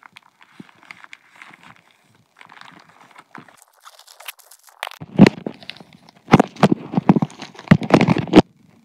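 Plastic compostable mailer bag rustling and crinkling as a box is pulled out of it, faint at first, then much louder crinkling and knocks of handling close to the microphone over the last few seconds.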